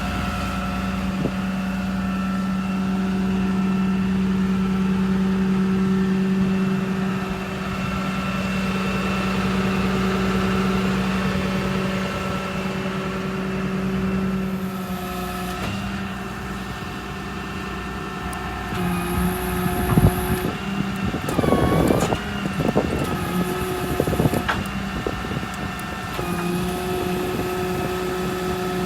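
Truck's 6.7 Cummins diesel running steadily while the service crane's hydraulics are worked. Several knocks and clanks come about two-thirds of the way through, and the hum sags briefly in pitch as the load comes on.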